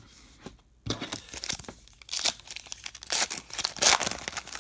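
Foil wrapper of a Topps Star Wars trading-card hobby pack being torn open and crinkled. A quiet first second gives way to a dense run of sharp crackles, loudest near the end.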